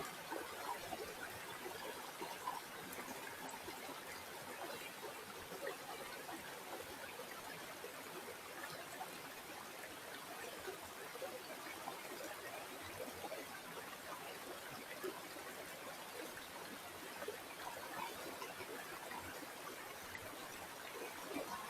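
Water in a stream flowing and trickling steadily, with a constant patter of small gurgles.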